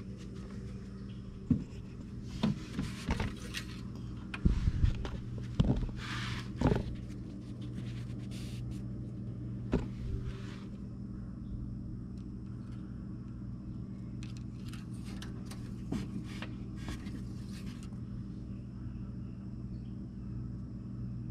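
Scattered clunks, taps and scrapes from hands working in a side-by-side's engine bay, with the oil jug and dipstick being handled. A cluster of sharp knocks comes a couple of seconds in, another near the middle, and lighter ticks later, all over a steady low hum.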